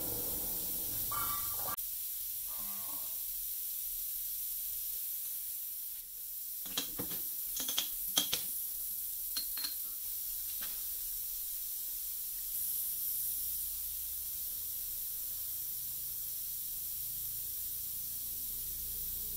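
A handful of sharp metallic clicks and knocks, mostly bunched together about seven to eleven seconds in, as the machined sprocket shaft is taken out of the lathe's four-jaw chuck, over a steady faint hiss.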